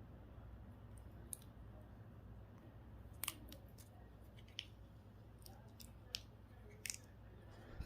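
Scattered small clicks and snips of hand tools cutting and prying apart the plastic and parts of a GPS unit, sharp and irregular, over a low steady hum.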